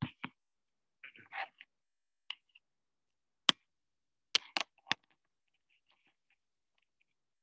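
A few sharp clicks: one about three and a half seconds in, then three in quick succession about a second later, with a couple of softer taps and rustles near the start.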